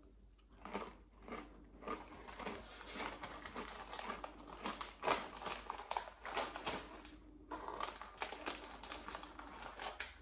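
A mouthful of crinkle-cut potato crisps being crunched and chewed, a dense run of irregular crackling crunches with a brief lull about seven and a half seconds in.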